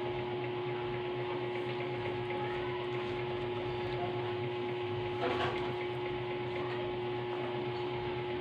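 Steady machine hum with a constant tone over an even noise, and one short knock about five seconds in.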